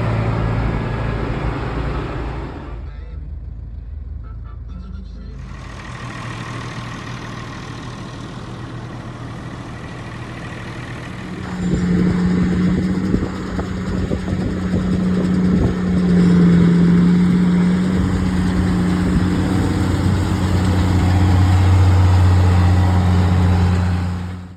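Engines of farm harvest machinery running steadily, over several clips that change abruptly about 3 seconds and 11 seconds in, then fade out at the end.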